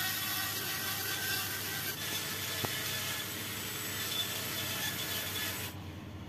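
Handheld electric rotary tool running with an abrasive drum, grinding the edge of a small PVC disc to size. The tool stops near the end.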